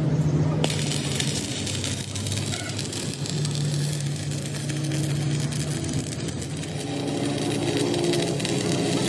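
Stick (arc) welding on steel: the electrode's arc crackles and sizzles steadily, starting about half a second in. A low steady hum runs underneath.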